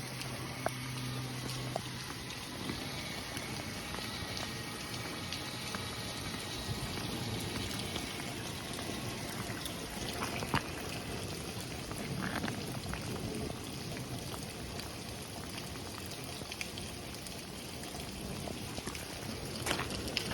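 Light rain falling steadily: an even hiss of drops with a few sharper single drop taps here and there.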